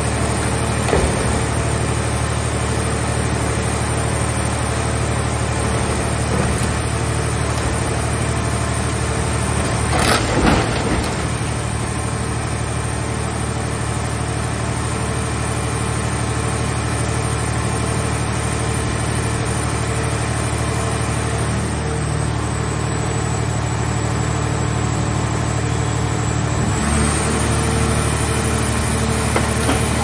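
The engine and hydraulic drive of a towable car-shell baler running steadily, with a loud crunch of crumpling car-body sheet metal about ten seconds in as the grapple presses the car into the baling chamber. Near the end the engine note changes slightly as the baler's lid begins to close.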